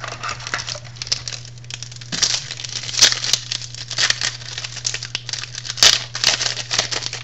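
Foil trading-card pack wrapper crinkling and crackling as it is handled and torn open, with louder crackles about 3 and 6 seconds in, over a steady low electrical hum.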